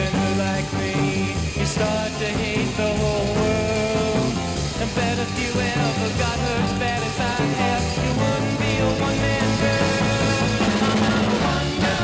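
A mid-1960s garage rock record playing: a full electric rock band with a steady beat.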